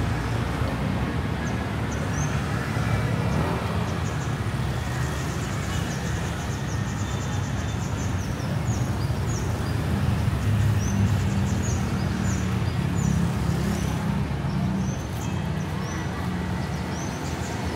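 Street traffic: a steady rumble of passing vehicle engines on a busy city street, with short high chirps scattered through it.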